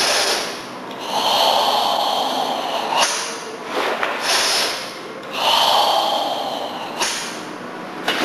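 A karateka's forceful, audible breathing during the Tensho kata: long, loud hissing breaths of one to two seconds each, drawn in and pushed out in turn in time with slow, tensed hand movements.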